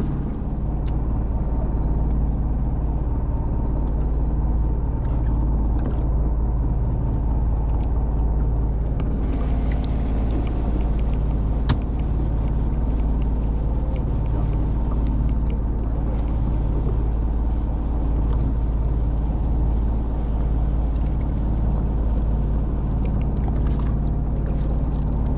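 Boat engine running steadily at idle, a constant low hum, with a single sharp tick about halfway through.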